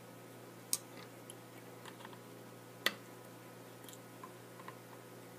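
Wire cutters snipping the excess leads of newly soldered capacitors on a circuit board: two sharp snips about two seconds apart, with a few faint ticks, over a faint steady hum.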